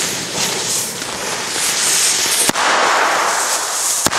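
Lit Black Cobra firecrackers hissing and sputtering as their fuses burn, with two sharp bangs, one about two and a half seconds in and one near the end.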